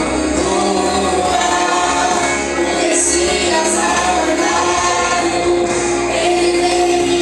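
A vocal group singing a gospel worship song in held, sustained lines over instrumental accompaniment.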